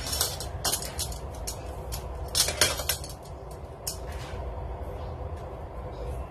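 Metal kitchen tongs and scissors clicking and clinking as they are picked up and worked over a ceramic plate of fried pork, a series of sharp light knocks, loudest about two and a half seconds in.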